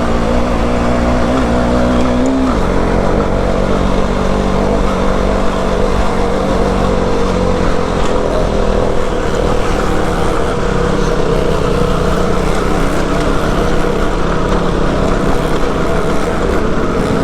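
Motorcycle engine running steadily under load on a dirt road, its note rising slightly and then dropping about two and a half seconds in, with a low rumble underneath.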